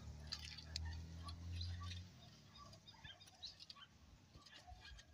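Faint outdoor ambience of scattered short chirps and ticks, with a low steady hum that cuts off about two seconds in.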